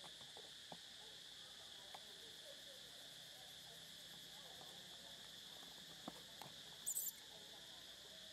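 Insects droning steadily at a high pitch, with a few faint ticks and a brief, very high chirp near the end.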